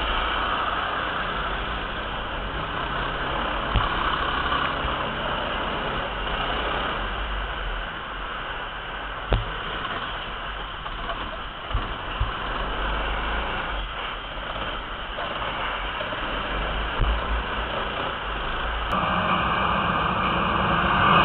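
Ice kart driving round an ice rink, heard from on board: a steady engine-and-running rumble with a few short knocks. Near the end the sound shifts and grows louder.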